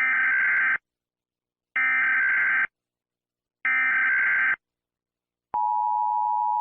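Emergency Alert System header: three short bursts of screeching SAME data tones, about a second apart, followed about five and a half seconds in by the steady two-tone EAS attention signal (853 and 960 Hz).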